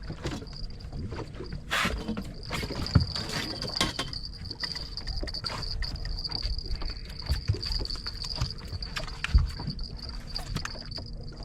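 Scattered knocks and clicks of handling aboard a small fishing boat, two of them sharper about three seconds and nine seconds in, over a steady high-pitched whine.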